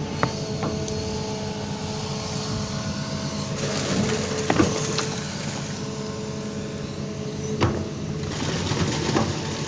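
Amphibious excavator's diesel engine running steadily, with a few sharp knocks and clanks from the machine at work.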